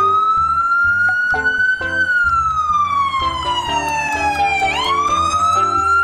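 Ambulance siren wailing: it rises at the start, sinks slowly for about three seconds, then climbs again near the end. Background music with a stepped bass line plays underneath.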